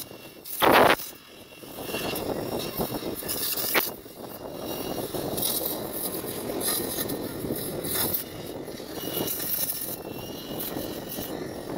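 Gas welding torch flame hissing steadily as it welds the steel inside a motorcycle silencer, with a few sharp crackles from sparks. A short, louder burst of noise comes about a second in.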